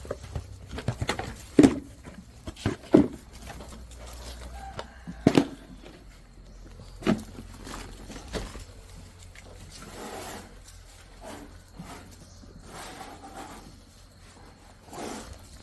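Goats moving about on a farm, with scattered sharp knocks and thumps, the loudest within the first six seconds.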